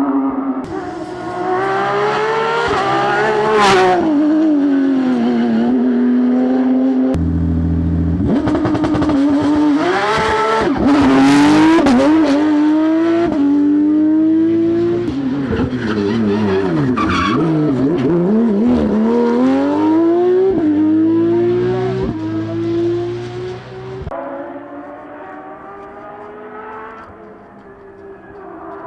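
Porsche 992 Rally GT rally car engine revving hard, its pitch climbing and dropping again and again with gear changes and lifts, in several short passes cut together. Quieter for the last few seconds.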